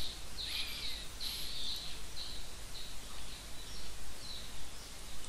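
Faint, short high chirps repeat about twice a second over a steady background hiss and low hum. They are animal calls from the background.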